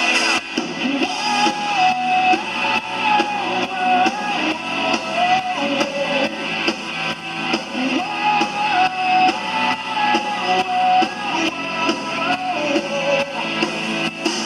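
Rock song instrumental passage: guitars playing over a steady drum beat, with a wavering lead melody line.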